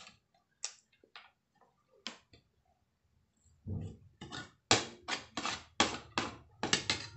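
Eating sounds of a person eating fish and rice from a plate: scattered soft clicks of chewing and of utensil and fingers on the plate, then about halfway in a run of louder sharp smacks and clicks, about three a second.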